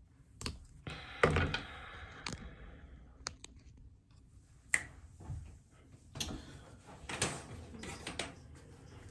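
Scattered clicks and knocks of small objects being handled, roughly one a second, with one louder knock and a brief rattle about a second in.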